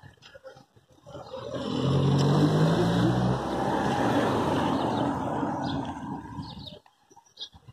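A car drives past close by: engine hum and tyre noise swell about a second in, hold for several seconds, then cut off abruptly near the end.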